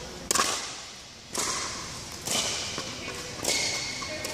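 Pickleball paddles hitting a plastic ball in a rally: four sharp pops about a second apart, each ringing on briefly in a large indoor hall.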